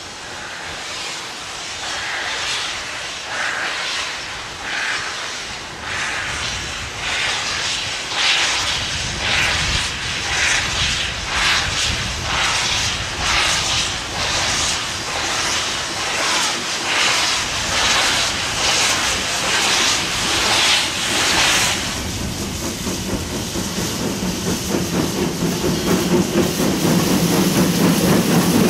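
HG 3/4 steam locomotive pulling away, with a steady beat of exhaust chuffs, about one and a half a second, and steam hissing. About 22 seconds in the chuffing stops, and a low rumble grows louder as a locomotive rolls close by.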